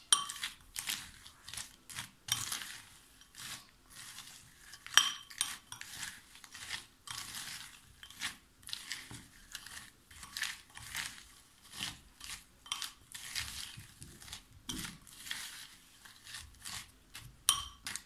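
Metal spoon stirring cocoa cereal balls coated in melted white chocolate in a glass bowl: a run of short scraping strokes, about one or two a second, with now and then a clink of the spoon against the glass.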